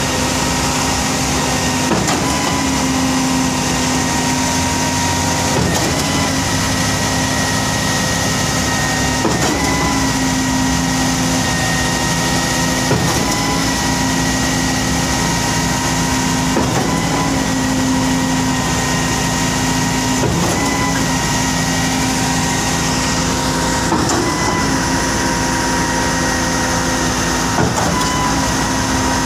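Heavy diesel engines of a concrete pump and truck mixer running steadily during a concrete pour, with a short knock and a dip in the engine note about every four seconds, typical of the pump's pistons changing stroke.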